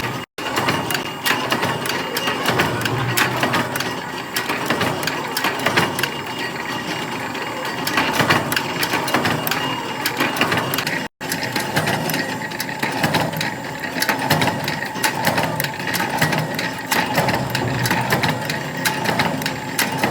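Workshop machinery running with a rapid, dense mechanical clatter of clicks and taps, briefly cut off twice.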